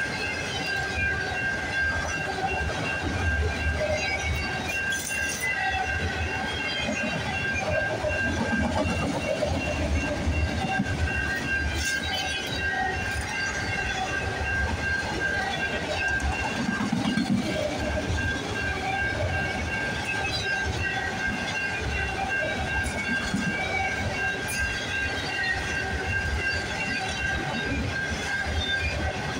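Freight train of autorack cars rolling steadily past, a continuous rumble of wheels on rail with a steady high-pitched tone running over it.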